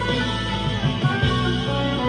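Harley Benton CST-24 electric guitar played through a Vox AV15 amp on its crunch channel with reverb, delay and chorus: mildly overdriven notes ringing and sustaining, with a change of notes about a second in.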